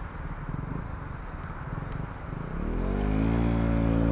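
A motor vehicle engine idling with an even low pulse, then revving up about two and a half seconds in and holding a steady higher pitch as it pulls away, growing louder.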